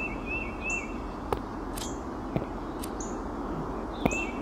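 Game ambience of bird chirps: quick runs of short chirps, three in a row at the start and again near the end, over a steady background hiss, with a few sharp clicks.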